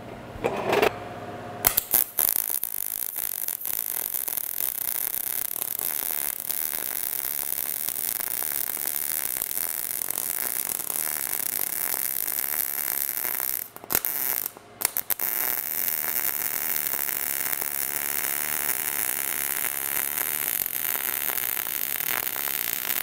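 Short-circuit MIG welding arc on .030 wire at 17.8 volts and 235 wire feed speed, running a root pass: a steady crackle that starts about two seconds in. About two-thirds of the way through the arc breaks off twice briefly, where the welder outruns the wire and pushes it into open air with no arc, then it picks up again.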